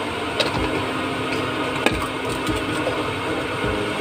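Steady kitchen cooking noise, an even hiss over a constant low hum, with two sharp clicks about half a second and two seconds in.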